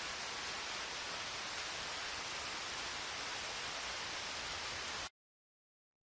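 Recording of steady rain, an even hiss of falling drops, which cuts off suddenly about five seconds in.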